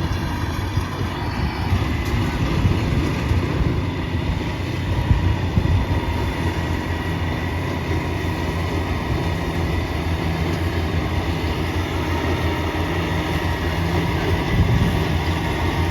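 Yanmar 82 rice combine harvester running steadily, its engine and machinery making a continuous heavy drone with a faint steady whine above it.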